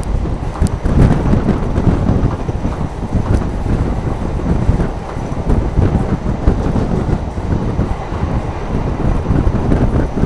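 EMU suburban electric train running, a steady, loud rumble of the carriage and wheels on the track heard from on board, with wind buffeting the microphone.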